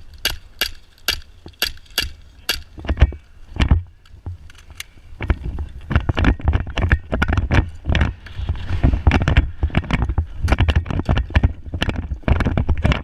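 Footsteps crunching on dry ground with gear rattling, evenly paced at about two a second at first, then quicker and more irregular from about five seconds in, over a low rumble of wind on the microphone.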